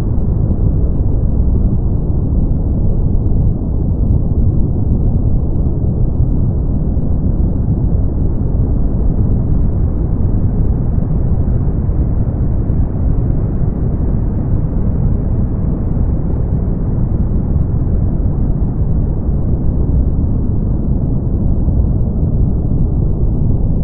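Brown noise: a steady, deep rumbling hiss, strongest in the low end and falling off above the midrange.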